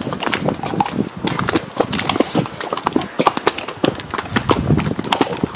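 Horse hooves clip-clopping on a stony, muddy trail: a quick, uneven run of sharp hoof strikes.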